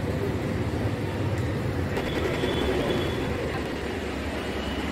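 Steady low rumble of city street noise, with a faint high whine coming and going about two to three seconds in.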